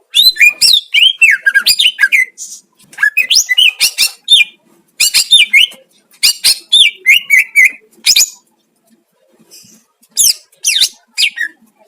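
Greater green leafbird (cucak ijo) singing: fast, varied, sliding whistled and chattering phrases in bursts of one to three seconds, with a pause of about two seconds before a last burst near the end.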